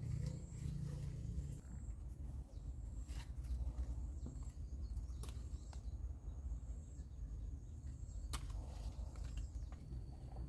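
Bean vines rustling, with a few sharp snaps as yardlong bean pods are picked off by hand, over a steady low rumble. A faint high thin tone comes and goes.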